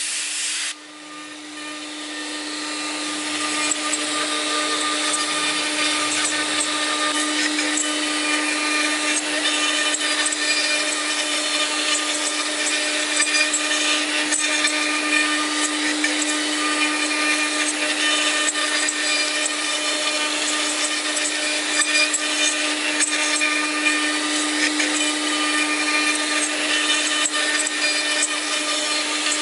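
Spindle of a woodworking CNC machining center (LH 8101) running with a steady whine while cutting wood, with rough cutting noise over it. About a second in, the sound drops off abruptly and then builds back up over the next few seconds.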